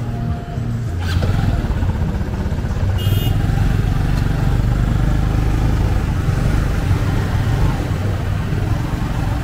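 Motorbike street traffic: a steady, loud, low rumble of engines, with a short high beep about three seconds in.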